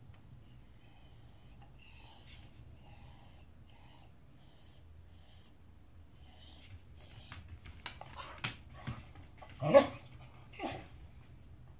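Beagle whining and huffing in short high-pitched bursts from about six seconds in, then giving one loud bark followed by a smaller one near the end: demand barking for its dinner.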